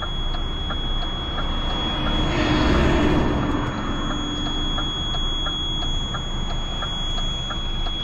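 A recovery truck's diesel engine idling, heard from the cab, with a quick, even ticking from the flasher relay. A louder rushing swell comes about two to three seconds in.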